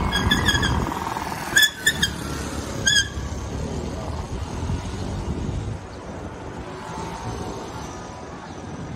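Traffic noise from cars passing on a city street, with several short, high chirps in the first three seconds. The traffic grows quieter after about six seconds.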